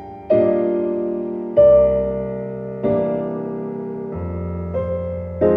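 Background music: soft electric piano chords, a new chord struck about every second and a half.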